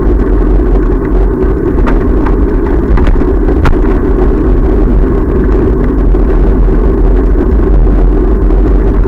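Steady loud rumble of wind on the microphone and the bicycle rolling over a paved path while riding, with a few light clicks about two to four seconds in.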